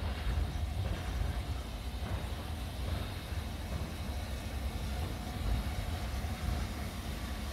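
Steam locomotive drawing slowly into the station, a low, steady rumble.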